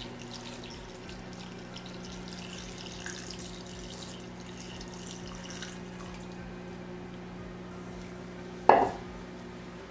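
Water poured from a plastic measuring cup into a pot of chopped vegetables and sausage, a splashing trickle lasting about five seconds. Near the end comes a single sharp knock, the loudest sound.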